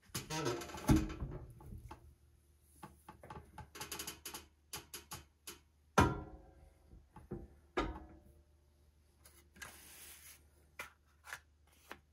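Swing-arm clicker press cutting leather with a steel rule die: a loud ringing stroke with a heavy thump about a second in, over the steady hum of the press. Then come several sharp metal clanks and knocks as the press head and die are moved, and a brief scraping rustle near the end.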